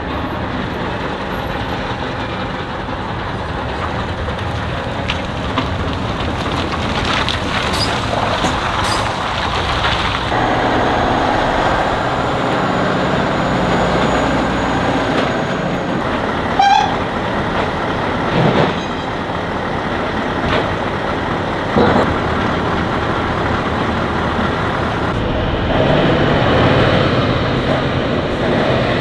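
Tatra 815 army trucks driving past, their diesel engines running steadily, with a brief toot a little past halfway.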